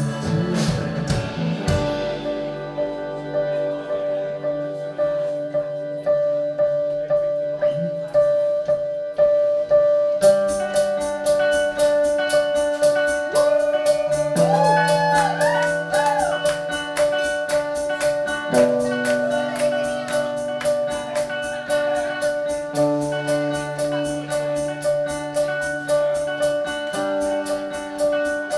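Live band playing the instrumental opening of a song over held chords. A fast, even beat comes in about ten seconds in, and gliding lead notes follow a few seconds later.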